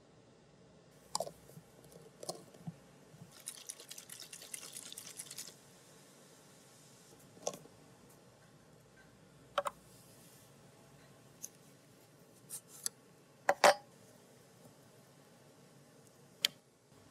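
Kitchen handling sounds: scattered clicks and knocks of a plastic jar with a screw lid and a cardboard pack being picked up and set down on a wooden table. There is a spell of quick rattling for about two seconds, starting some three and a half seconds in. The loudest sound is a cluster of knocks about thirteen and a half seconds in.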